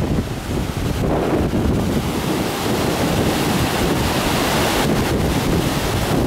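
Ocean surf breaking and washing up the beach, its hiss of foam swelling from about a second in, with wind rumbling on the microphone.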